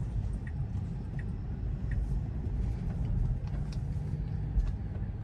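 Low, steady road rumble and tyre noise heard inside the cabin of a Tesla electric car as it drives along, with no engine sound.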